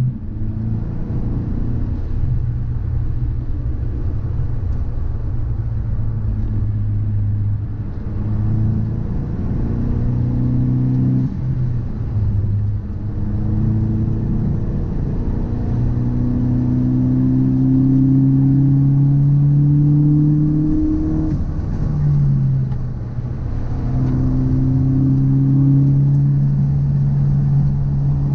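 Car being driven, its engine note climbing steadily and dropping sharply at gear changes about eleven and twenty-two seconds in, over low road rumble. It is recorded for an abnormal noise that the owner suspects comes from a drive shaft or a wheel hub.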